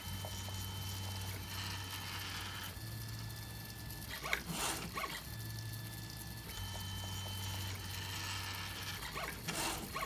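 3D printer running mid-print: its stepper motors give steady whining tones over a low hum, the pitch pattern switching every second or two as the print head changes moves. Two brief rustles, about four and a half seconds in and near the end.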